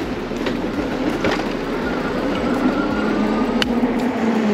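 Electric bike's Bafang rear hub motor humming and whining as the bike pulls away from a standstill on fifth-level assist, the pitch creeping up a little with speed, over wind and road noise. Three short sharp knocks cut through it.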